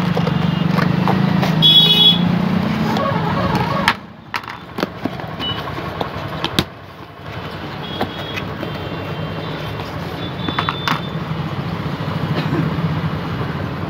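Cardboard shipping box being cut open with scissors and unpacked by hand, with scattered clicks and taps of cardboard, over a steady low engine hum. The hum drops away about four seconds in and returns a few seconds later; a short high-pitched beep sounds about two seconds in.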